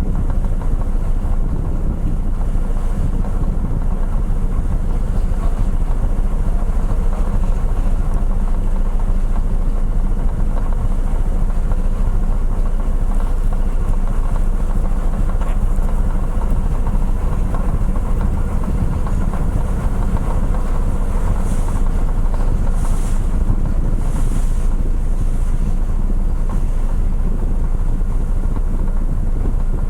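Car ferry's engines running with a steady low drone, mixed with wind noise on the microphone.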